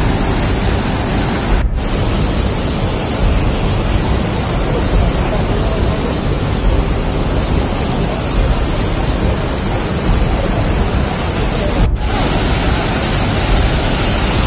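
Loud, steady rush of floodwater in a flash flood surging down a wadi. It breaks off for an instant twice.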